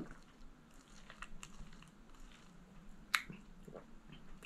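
Quiet mouth sounds of a person sipping a blended frappuccino through a straw: small wet clicks and swallows, the sharpest click about three seconds in.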